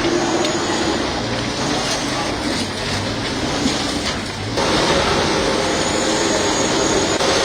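A heavy engine running amid street noise and background voices, with an abrupt change in the sound about four and a half seconds in.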